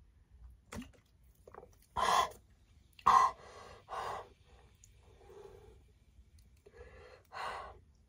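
A woman gasping for breath after chugging a bottle of cold soda: two loud gasps about two and three seconds in, then several softer, slower breaths.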